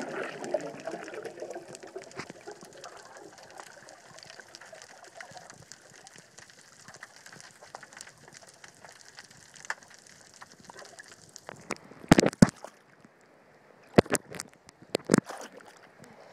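Underwater sound picked up by a camera moving over a reef: a steady watery hiss with many faint crackling ticks, fuller in the first couple of seconds. About twelve seconds in the hiss drops away and several sharp knocks follow.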